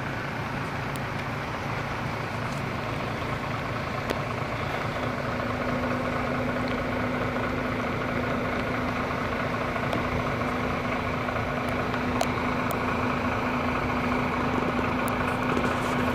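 Motor vehicle engine idling close by, a steady hum with a second steady tone coming in about five seconds in.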